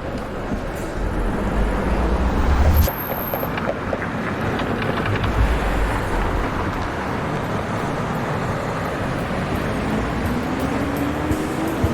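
Road traffic: vehicles passing, with heavier low rumbles twice and an engine note rising near the end.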